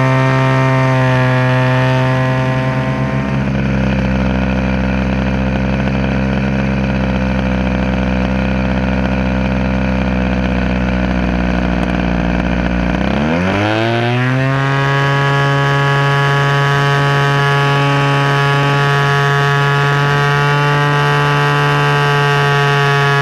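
DLE 20 single-cylinder two-stroke gas engine turning an APC 16x8 propeller on an RC aerobatic plane, heard from a camera bolted under the fuselage. It runs steadily, eases down in pitch about two to three seconds in and holds there, then about thirteen seconds in revs up sharply and holds a steady higher pitch.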